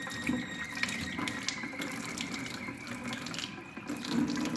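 Quooker boiling-water tap running steadily into the sink as its tank is flushed out.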